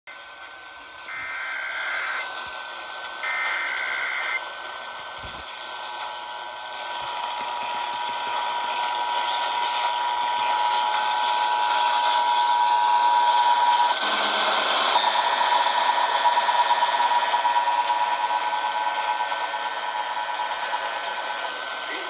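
Emergency Alert System test received over a radio: two short screeching data bursts of the SAME digital header, then the steady two-tone EAS attention signal, with static hiss throughout. The tone drops out into static for about a second around 14 seconds in, then resumes.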